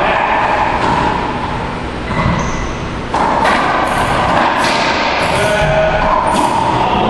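Racquetball rally: a series of sharp smacks of the ball off racquets and the court walls, over a loud, steady roar of background noise.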